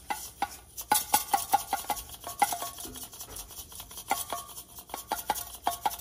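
Glass mason jar of rice, with a lead sinker and a ping pong ball inside, shaken back and forth by hand: rice rattling in quick even strokes, several a second, each with a short ringing clink.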